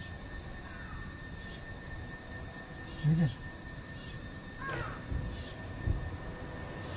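Steady outdoor hiss; a man's voice calls briefly about three seconds in, and a short, higher animal call that bends in pitch follows about a second and a half later.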